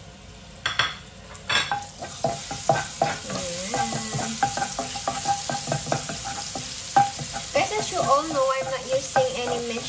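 Minced garlic sizzling in hot olive oil in a nonstick pan while a spatula stirs and scrapes it around. A few light knocks come in the first two seconds, then the sizzle grows louder.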